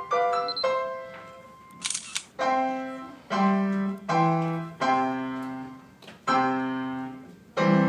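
Grand piano played by a child: a run of quick high notes, then slow, separate chords over low bass notes, ending on a final chord struck near the end. A short hiss is heard about two seconds in.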